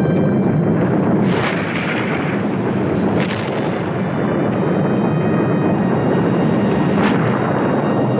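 Yasur volcano's active vent erupting: a continuous deep rumble broken by sharp explosive blasts about a second in, at about three seconds and again at about seven seconds, as it throws out lava bombs.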